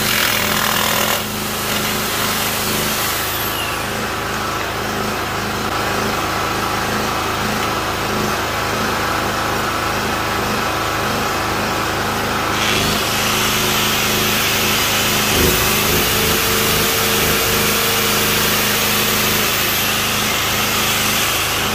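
Biltema G3000 3 kW petrol generator with a four-stroke 7 hp engine running steadily under load while it powers hand tools: an electric jigsaw cutting wood for about the first second, then an electric angle grinder running.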